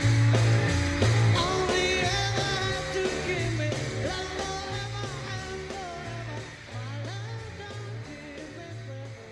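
Outro music: a rock-style song with singing over changing bass notes and a steady beat, fading out gradually.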